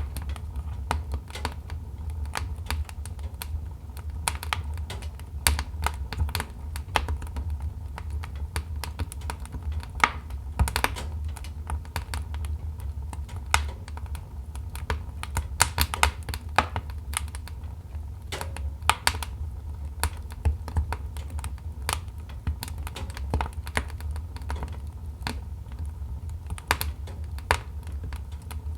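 Wood fire in a fireplace crackling: burning logs giving off irregular sharp pops and snaps over a steady low rumble of the flames.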